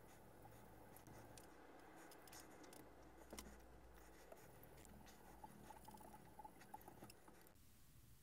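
Faint scratching of a 600-grit stone stroking along a knife edge in a fixed-angle sharpener, with small ticks here and there; it stops about seven and a half seconds in.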